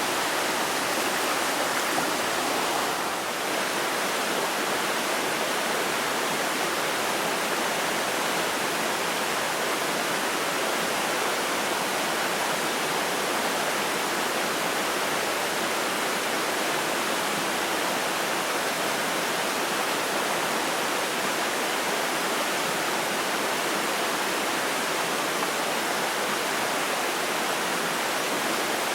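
Steady rush of a trout stream's flowing water, even and unbroken.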